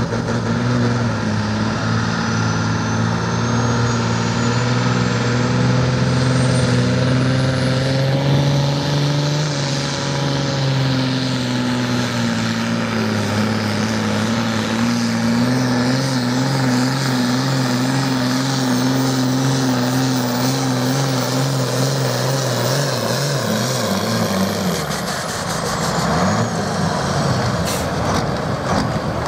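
Engine of a tractor-pulling machine running hard through a pull, with a high whistle that climbs over the first several seconds, holds, and falls away as the engine note drops off near the end.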